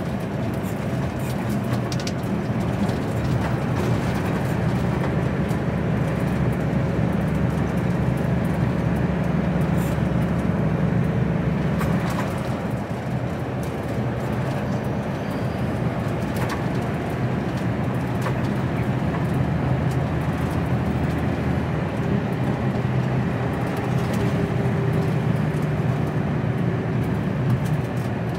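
HGV container lorry's diesel engine and tyres drone steadily while driving on an open road, heard from inside the cab.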